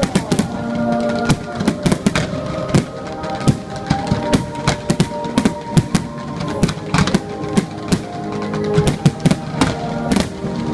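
Music with drums playing loudly, overlaid by frequent, irregular sharp bangs of fireworks bursting.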